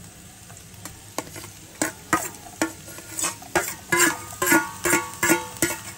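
A steel spoon knocking and scraping chopped garlic out of a stainless-steel bowl into a frying pan, over a low sizzle of onions frying in oil. The clinks come faster from about two seconds in, and many leave the bowl ringing.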